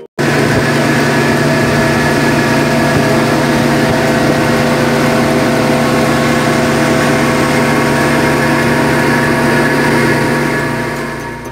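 Outboard motor running steadily at cruising speed, with the rush of water and wind over it. It starts abruptly and holds one even pitch throughout.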